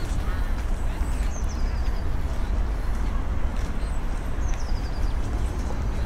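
Outdoor ambience with a steady low rumble, over which birds call: two short, high calls that step down in pitch, about three seconds apart.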